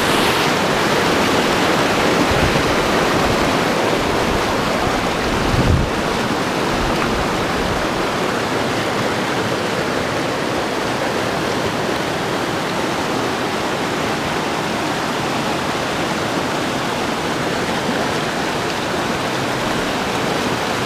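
Mountain stream rushing over rocky cascades and small falls, a steady, even rush of water, with a brief low thump about six seconds in.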